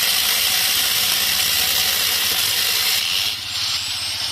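Angle grinder with a chainsaw adapter cutting wood, a loud steady high-pitched rasping noise. About three seconds in, the cutting noise drops and a thin high motor whine rises in pitch.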